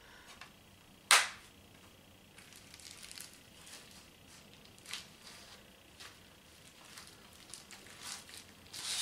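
A single sharp click about a second in, then soft, crackly rustling of plastic bubble wrap as a makeup palette is slid into a bubble-wrap sleeve.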